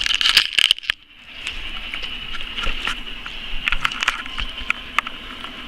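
Handling noise from a camera being picked up and moved: knocks and rustles on the microphone in the first second with a brief drop-out, then light scattered clicks and taps over a steady high-pitched whine.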